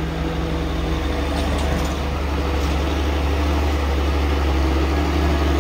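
Diesel engine of a Mitsubishi Fuso tow truck running steadily under load as it tows a bus, growing slightly louder as it approaches.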